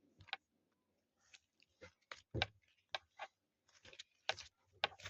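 Homemade glitter slime being kneaded by hand, stretched, folded and squished, giving faint, irregular sticky clicks and squelches.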